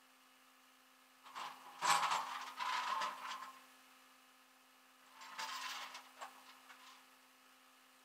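Metal tie-down hardware rattling and scraping against the flatbed deck at a car's front wheel as it is secured for towing, in two bursts a few seconds apart, over a faint steady hum.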